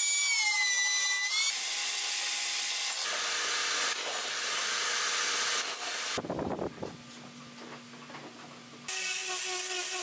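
Power tools working wood in quick cuts. First a router bit whines, its pitch dipping and recovering as it bites into the wood. Then comes loud sawing noise, a quieter stretch with a low steady hum, and near the end an angle grinder whines as it sands a board.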